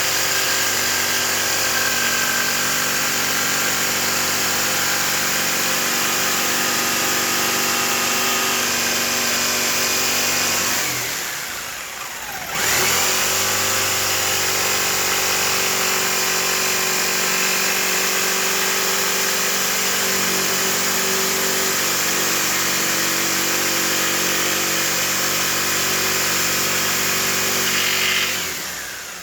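Electric saw motor running steadily while cutting wood. About eleven seconds in it winds down with a falling pitch and starts up again a second or so later; near the end it winds down once more.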